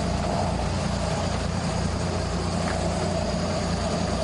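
Sport-fishing boat's engine running steadily with an even low drone, over the rush of the churning wake.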